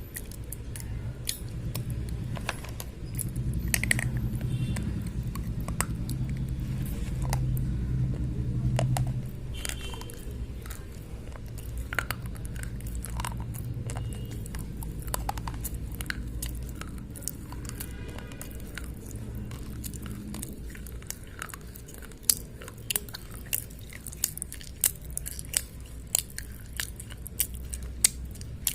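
Slate pencils being bitten and chewed: a run of sharp, crunchy clicks that grow louder and more distinct in the last several seconds.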